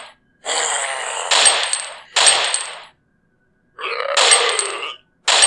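Sharp electronic sound effects played on a phone during a Bluetooth low-latency test: about four in a row, each starting suddenly and fading over roughly half a second, with dead silence between them.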